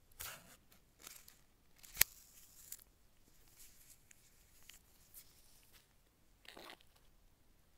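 Gloved hands handling a folded paper card from a phone box: short rustles and crinkles of the paper as it is lifted, opened and slid back, with one sharp click about two seconds in.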